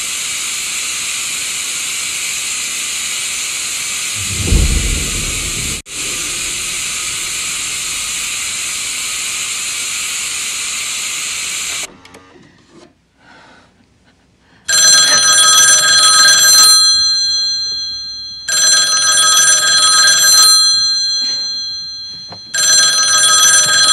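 Television static hissing steadily, with a brief low thump about four seconds in, then cutting off suddenly about halfway through. After a short quiet gap a telephone rings three times, each ring about two seconds long, the third beginning near the end.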